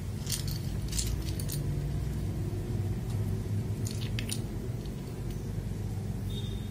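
A few light, scattered plastic clicks as keycaps are handled and fitted back onto a mechanical keyboard, over a steady low hum.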